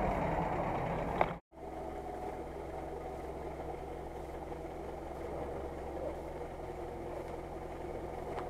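UAZ-469 off-roader's engine running close by for about a second as it labours up a muddy track, then, after an abrupt cut, idling steadily.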